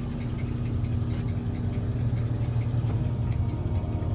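Ford Bronco engine idling with a steady low rumble, light irregular ticking over it.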